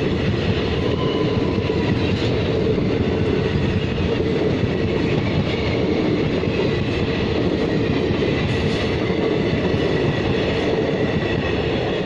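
Indian Railways passenger train coaches running steadily along the track: a continuous heavy rumble of wheels on rails with the rake vibrating, and faint steady high-pitched tones above it.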